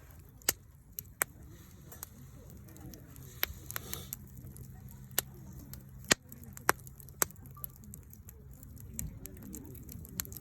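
Wood campfire crackling, with sharp pops at irregular intervals, several seconds apart to under a second apart.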